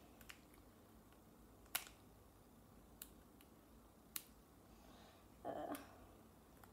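Mostly near silence, with a few faint sharp clicks and crackles from a foil trading-card booster pack being worked open by hand, and a brief louder noise a little after five seconds in.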